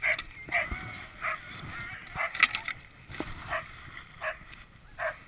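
Sled dogs yipping and whining in short, repeated cries, over a low rushing of the sled moving on snow.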